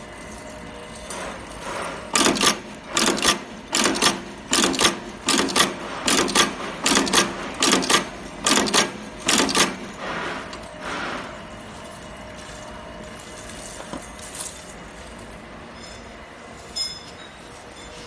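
Automatic button and eyelet attaching press stamping metal studs into denim: a quick run of about fifteen loud clacking strokes, roughly two a second, over about eight seconds, then it stops.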